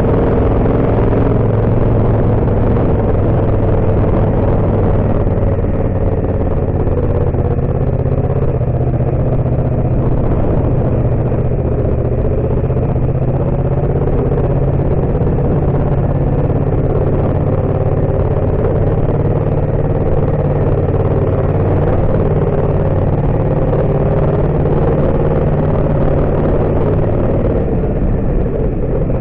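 Yamaha MT-07's 689 cc parallel-twin engine running at fairly steady, low revs as the bike is ridden, its pitch wavering only slightly.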